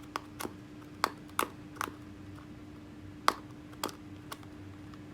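About eight sharp, irregular clicks and taps from small fishing-reel parts and packaging being handled, the loudest about three seconds in, over a faint steady hum.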